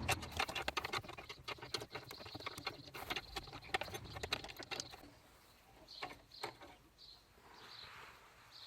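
Ratchet wrench clicking rapidly for about five seconds while a strut bolt is being loosened, then a couple of single clicks.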